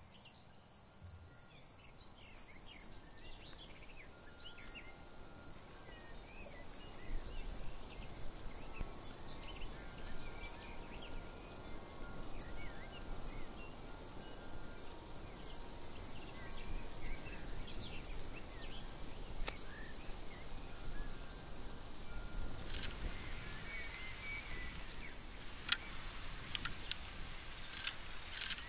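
Crickets trilling steadily in a fast, even pulse, with faint short bird chirps; a second, higher insect trill joins late on. A few sharp clicks come near the end, one of them the loudest sound.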